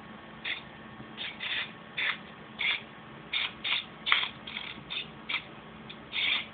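Short, irregular scuffing and rubbing noises, about two a second, from a hand handling and turning a hollow plastic robot body shell.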